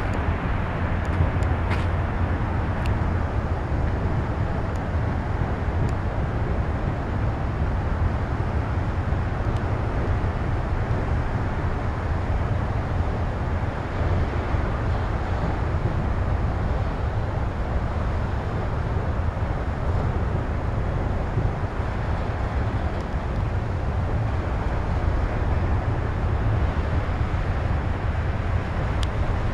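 Long freight train of container cars rolling past in a steady rumble of wheels on rail.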